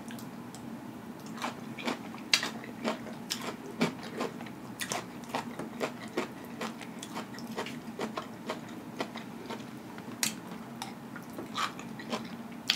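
Close-miked chewing of a mouthful of food, with many short, irregular mouth clicks and smacks.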